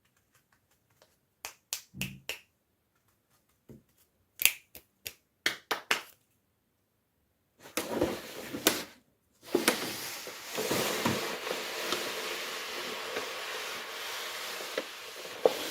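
Doll packaging being handled in an unboxing. First comes a series of sharp clicks and taps. After a short pause there is steady rustling of packaging, with occasional knocks.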